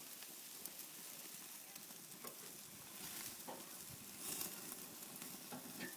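Tandoori chicken sizzling over an open wood fire: a steady hiss with scattered small crackles, swelling louder about four seconds in.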